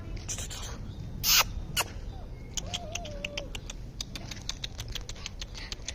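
A Gaddi puppy whimpering: one short whine, then a wavering whine of about a second around the middle. Light clicks and ticks run throughout, and a short, loud rustling burst comes about a second in, the loudest sound here.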